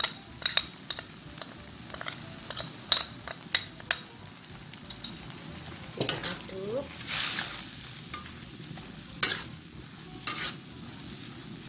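A utensil stirring in a pot of simmering vegetable broth, knocking and clinking against the pot many times in the first few seconds, then a short hiss and a few louder knocks.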